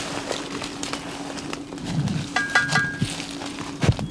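Rustling and steps in forest undergrowth, with pieces of metal aircraft wreckage clinking and briefly ringing a little over two seconds in. There is a low thump near the end.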